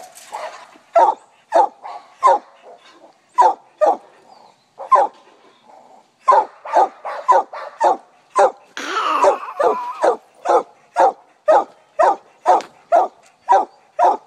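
Walker coonhound chop-barking repeatedly at a raccoon tail, in quick short barks of about two a second, with a brief pause around five seconds in and one longer drawn-out bark about nine seconds in.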